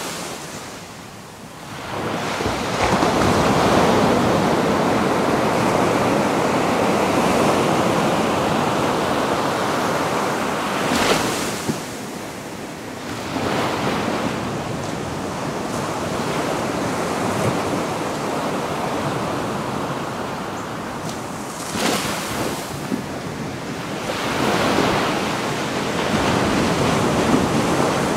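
Ocean surf breaking on a beach: a steady rush of waves that swells and eases, with sharper crashes about eleven seconds in and again about twenty-two seconds in.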